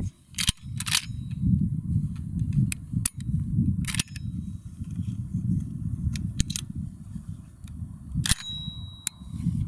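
A 12-gauge shotgun being loaded and handled: a scattered series of sharp metallic clicks and clacks as shells go into the gun and the action is worked, over a steady low rumble.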